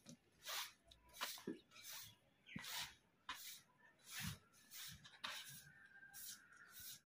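A long-handled broom swishing against a woven plastic mat hung up to be beaten clean, one short swish after another, roughly one every half second to second, with a few dull thuds among them. Near the end the broom sweeps along the ground.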